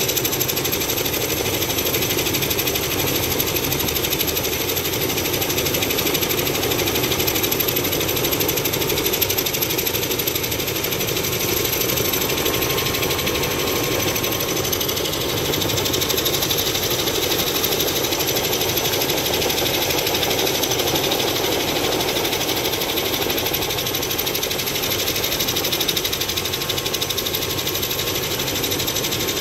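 Helicopter running: a steady engine and rotor drone with a thin high whine over it.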